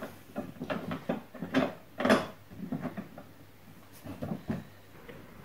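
Irregular plastic clicks, knocks and rattles of a ride-on toy car's steering wheel and wiring being handled and fitted, loudest about two seconds in and thinning out after three seconds.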